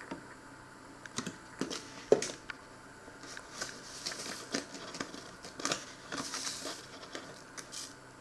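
A few light knocks of kitchen items being handled and set down, the loudest about two seconds in, then a paper sugar bag crinkling as a metal spoon scrapes and digs into granulated sugar.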